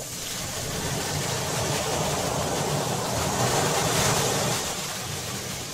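Ocean surf washing up on a sandy beach: a steady rush that swells over a few seconds, peaks, then eases off near the end.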